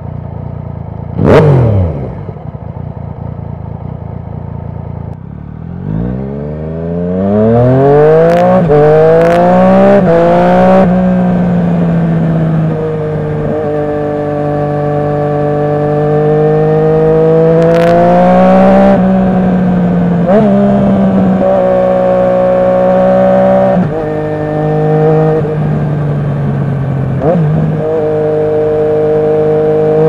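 Yamaha MT-09's inline three-cylinder engine through an Akrapovic titanium Racing Line exhaust, heard close to the exhaust while riding. For the first few seconds it runs lower and steady, with one brief loud rev about a second in. From about six seconds it accelerates up through the gears with quick gear changes, then runs on with the revs rising and falling.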